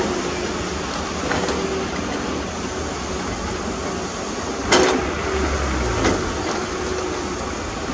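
Heavy earthmoving machinery running steadily, with a few sharp metallic clanks, the loudest about five seconds in.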